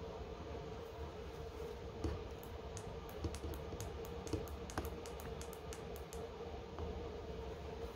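Quiet room with a steady low hum, and a run of light, quick clicks, about five or six a second, for roughly four seconds in the middle.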